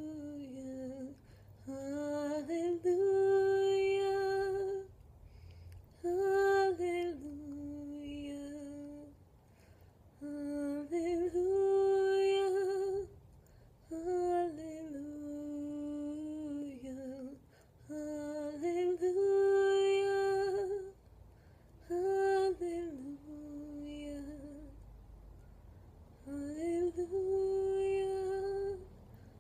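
A woman singing solo without accompaniment, a slow melody of long held notes that step up and down, in phrases a few seconds apart with short pauses for breath.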